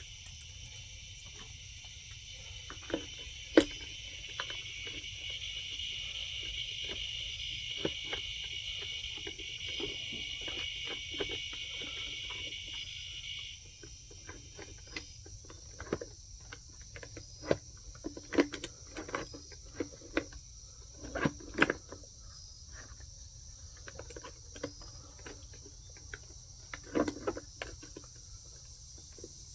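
Steady, high insect chorus, with one layer of it stopping about halfway through. Over it come scattered sharp clicks and knocks of hands working the electric chainsaw's bar and chain, coming more often in the second half.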